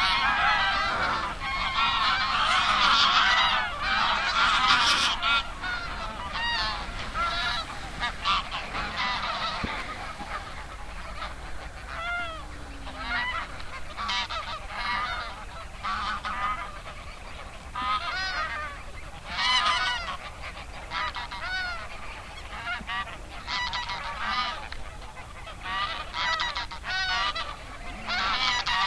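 A large flock of geese honking: a dense chorus of overlapping calls for the first several seconds, thinning to separate, scattered honks for the rest.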